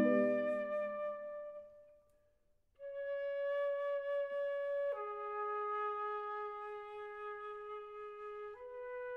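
A low marimba chord and a flute note ring on and fade away over about two seconds. After a short silence a solo concert flute plays three long held notes, the second lower and the third a little higher.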